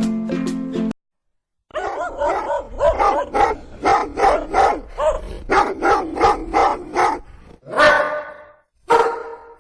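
A short music jingle ends about a second in; after a brief silence a dog barks rapidly, about three to four barks a second, then gives two longer, louder barks near the end.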